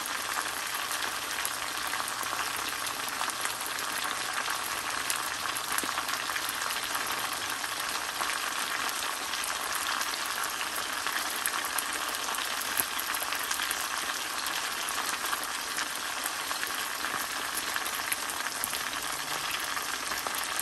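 Marinated whole chicken, split in half, sizzling in a little olive oil in a large stainless-steel kadai over medium heat: a steady frying hiss with fine crackles throughout.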